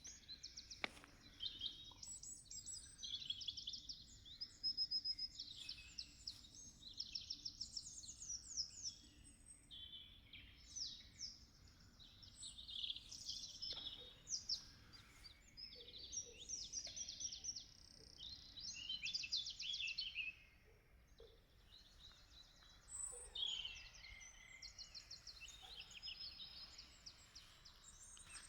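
A songbird singing a long, varied song of rapid trills and chirping notes, pausing only briefly between phrases.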